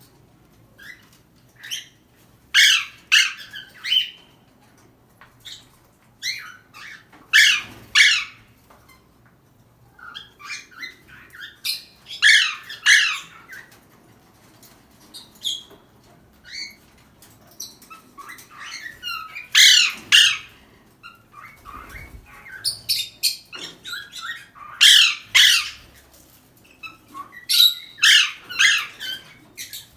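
Pet parrot calling in loud squawky bursts of a second or so, repeating every four to six seconds.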